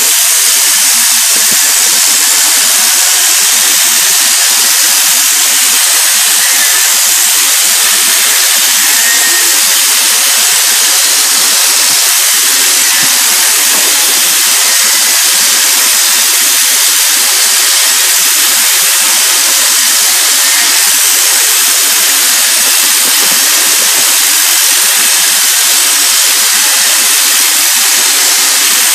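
Sheep-shearing handpiece on a jointed overhead drive rod, running steadily as it cuts through the fleece: an unbroken high whir.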